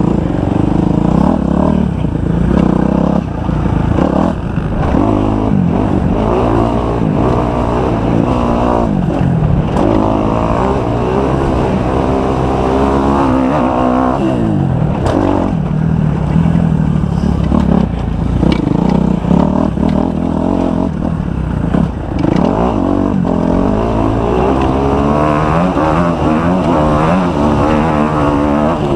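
Kawasaki 250 motocross bike's engine being ridden hard, revving up and down again and again, its pitch repeatedly climbing and dropping with the throttle.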